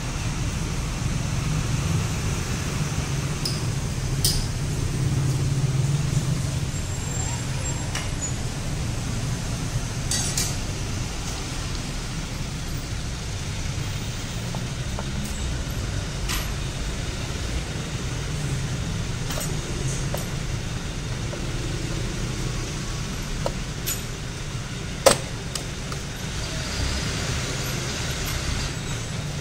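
Sharp metal clicks and knocks, a few seconds apart, as the clutch cover is fitted back onto the crankcase over the clutch basket, with a steady low rumble of background noise under them. The loudest knock comes near the end.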